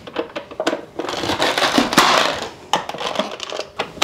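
Push-down vegetable chopper dicing a red bell pepper: the plastic lid presses the pepper through the grid blades with crunching and sharp plastic clicks and clacks. The loudest crunch comes between about one and two and a half seconds in.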